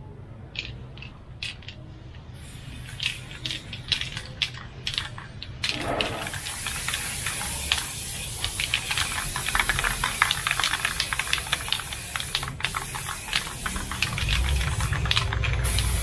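Aerosol spray-paint can hissing steadily from about six seconds in as a coat of paint goes onto car door handles. Scattered short clicks and rattles come before the hiss.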